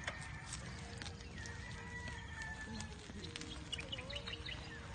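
Faint low rumble of a bicycle ride on a paved road, with scattered light clicks and a few short, high chirps about three and a half to four seconds in.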